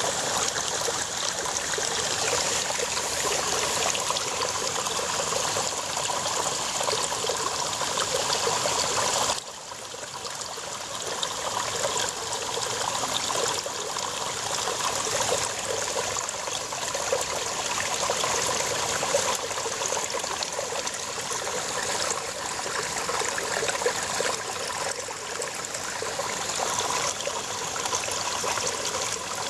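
Babbling brook running over rocks: a steady rush and gurgle of water. The sound drops suddenly in level about nine seconds in, then builds back over a few seconds.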